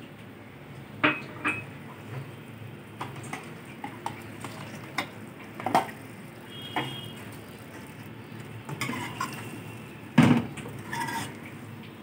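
Metal ladle stirring a curry in a metal cooking pan, clinking and knocking against the pan at irregular intervals, loudest about ten seconds in, one clink ringing briefly. Under it a low steady sound of the gravy simmering.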